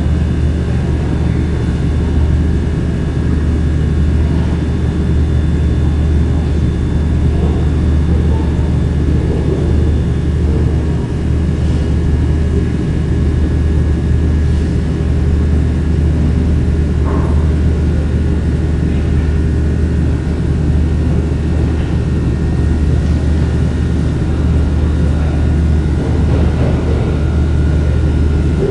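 Fast-food restaurant restroom ambience: a steady low drone with faint, steady high-pitched whines over it, and a few faint knocks now and then.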